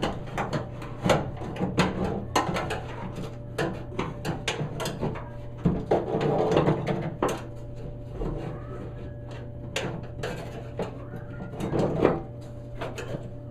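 Irregular metal clicks, knocks and rattles as the modified door latch is handled and fitted into a 1967-72 Chevy C10 truck door, over a steady low hum.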